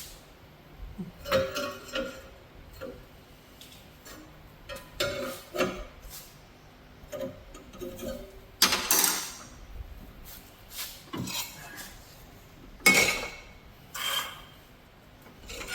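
Metal clinks, knocks and scrapes of a thick plasma-cut steel plate being worked into a bend against the edge of a workbench, with two louder clanging scrapes about 9 and 13 seconds in.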